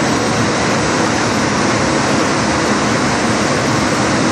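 Ten-colour rotogravure printing press running: a steady, loud rushing mechanical noise.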